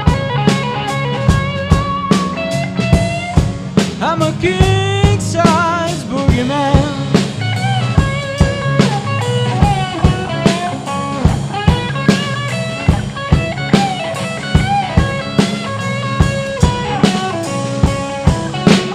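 Blues band playing an instrumental passage: a lead guitar bending notes and wavering in pitch over a steady drum beat and bass line.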